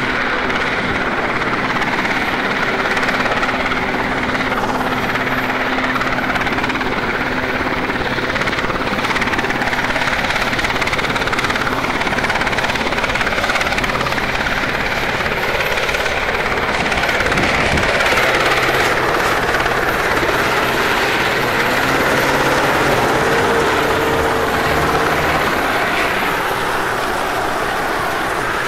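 A Sea King rescue helicopter's rotors and engines running steadily overhead, heard over the engine drone and the wind-and-water rush of an open inshore lifeboat in choppy sea.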